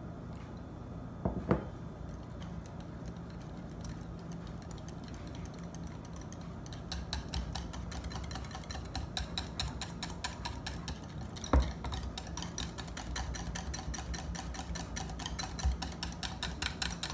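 Wire whisk beating mayonnaise thinned with milk in a bowl, to make it smooth and fluffy. The wires make quick, even strokes against the bowl, several a second, and these get louder and faster about seven seconds in. Two knocks come, one about a second and a half in and one about twelve seconds in.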